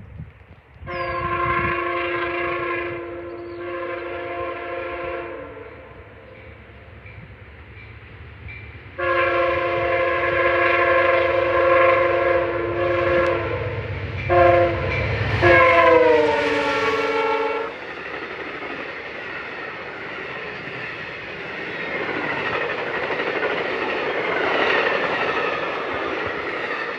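Amtrak P42DC locomotive's multi-chime air horn blowing the grade-crossing signal: long, long, short, long, with the last blast dropping in pitch as the locomotive goes past. After it, the passenger train rolls by with a steady rail rumble and wheel clatter.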